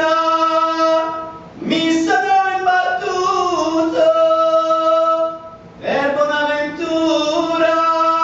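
A man singing a devotional bhajan solo and unaccompanied, holding long sustained notes, with two short breaks for breath about one and a half and five and a half seconds in.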